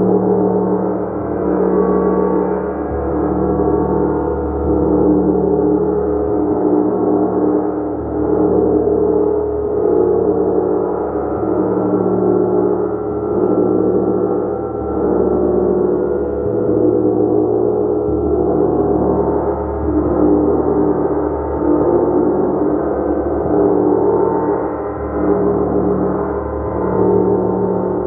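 A gong played continuously, a dense, unbroken wash of many overlapping ringing tones that swells and ebbs roughly every two seconds as it is struck again and again.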